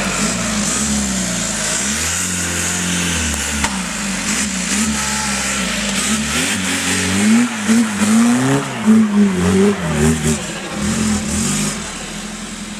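Off-road 4x4 competition vehicle's engine revving up and down over and over, with a run of quick, hard blips in the second half before it settles.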